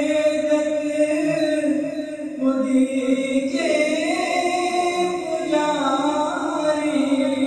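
A male voice singing a devotional naat, drawing out long held notes that slide from one pitch to the next.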